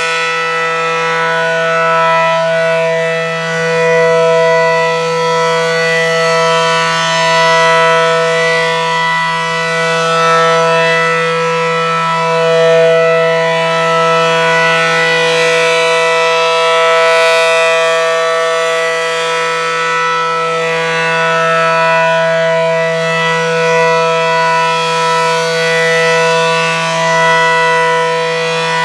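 ACA Allertor outdoor warning siren sounding a steady, low-pitched alert tone, a dense chord of held notes that swells and fades every few seconds.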